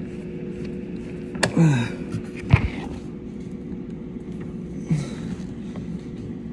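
Hands working dishwasher hose fittings: a few sharp knocks and handling noises, the loudest about two and a half seconds in, over a steady low hum.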